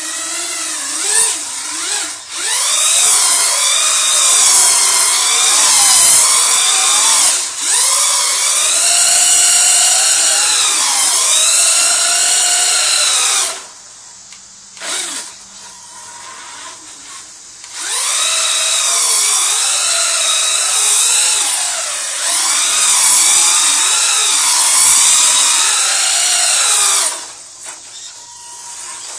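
Duratrax Evader RC truck's electric motor and geartrain whining, the pitch rising and falling over and over as it spins donuts on wet concrete. It drops to a quieter spell for a few seconds about midway and again briefly near the end.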